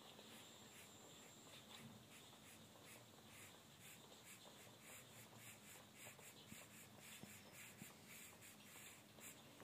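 Apsara charcoal pencil scratching on sketchbook paper in a run of quick short strokes, several a second, as hair is shaded in. Faint.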